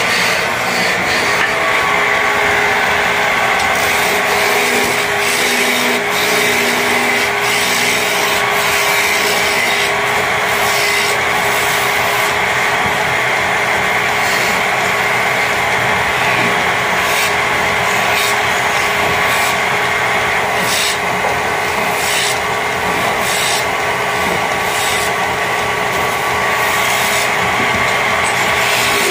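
Motor-driven wood lathe running with a steady whine while a hand chisel cuts a spinning wooden garden-rake handle, a continuous scraping with many short catches and strokes.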